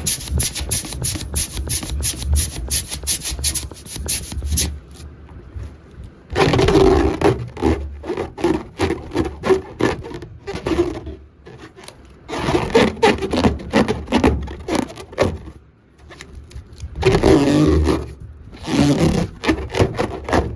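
Rubber balloon rubbed and squeaked: a quick run of short rubbing squeaks, then several long, wavering squeals a few seconds apart.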